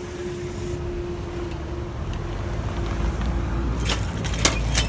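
Level crossing barrier's drive motor whining at one steady pitch as the boom rises, cutting out about three and a half seconds in once the barrier is upright. A few sharp knocks follow near the end.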